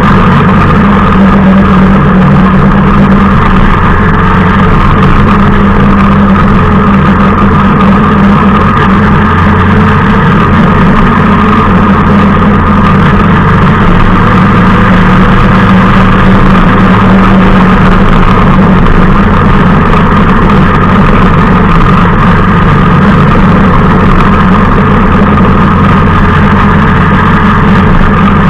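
Motorcycle engine running steadily at an even pitch while riding, heard close from a camera mounted on the bike.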